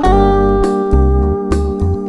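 Background music: plucked guitar-like notes over a steady bass line, changing chords every half second or so.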